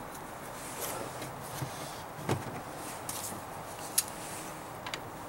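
Quiet tool-handling noises: a dull knock about two seconds in and a sharp metallic click about four seconds in, as a socket on an extension is fitted onto a delivery valve holder of a Bosch P-7100 injection pump.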